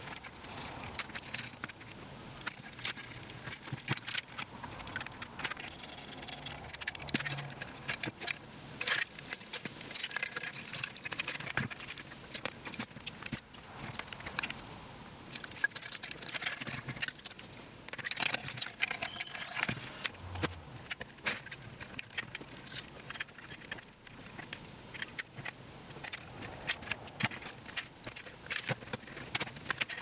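Irregular clicks, taps and rattles of wiring and small electronic parts being handled and pushed into an extruded-aluminium control box.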